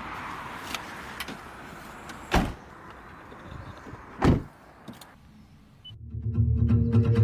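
Two loud thumps about two seconds apart, with a few lighter clicks, over a steady background hiss. Music starts about six seconds in.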